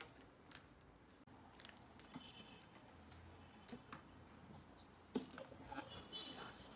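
Faint scattered clicks and snips of plastic air-conditioner drain hose being cut to length and handled, with a sharper click about five seconds in.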